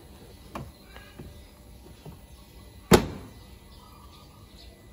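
Plastic door of a children's ride-on electric car (Volta 5077 Toyota Land Cruiser LC300) pushed shut by hand, closing with one sharp plastic snap about three seconds in. A lighter click comes about half a second in.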